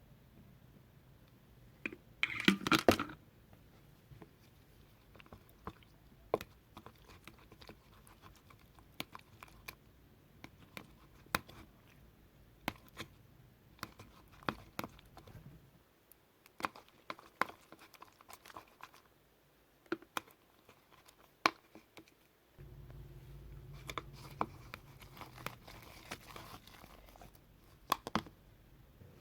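Thick, glossy slime being worked by hand, giving off scattered sharp sticky clicks and pops, with a denser crackling burst about two and a half seconds in.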